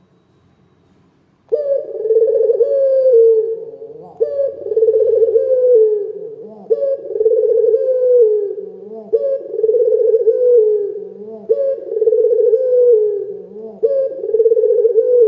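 Collared dove (puter lokal) cooing, loud. It starts about a second and a half in and repeats its phrase about every two and a half seconds, six times.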